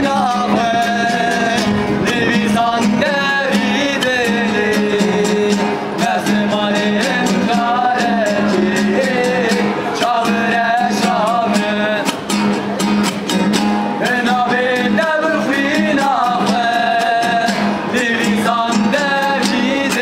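Several men singing a folk song together, accompanied by two strummed guitars, a nylon-string classical guitar and a steel-string acoustic guitar.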